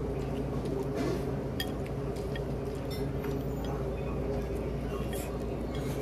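Utensils clinking now and then against a bowl as noodle soup is eaten, a few short sharp clicks over a steady low background hum.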